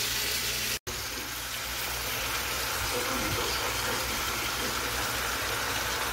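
Marinated chicken pieces sizzling in hot oil in a pan, a steady hiss. Under a second in, the sound cuts out completely for an instant.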